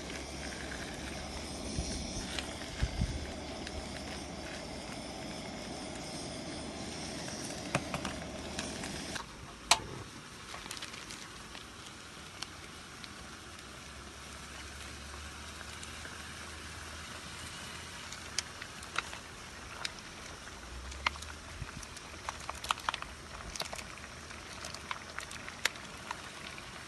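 Meat sizzling and crackling as it grills, with scattered small pops. The sizzle drops in level about nine seconds in.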